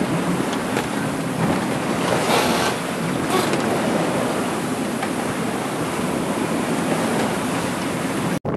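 Rough sea rushing past a sailing yacht under way, with strong wind, a steady loud wash that surges in two stronger bursts around two and three seconds in. It breaks off sharply just before the end.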